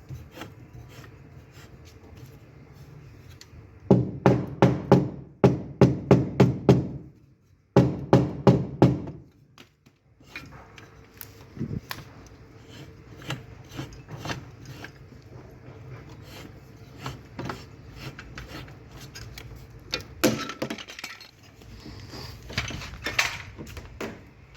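Hammer striking the sheet metal of a car's sill panel in quick runs of sharp taps, about four to five a second, with lighter, scattered taps in between, as the dent is worked out cold.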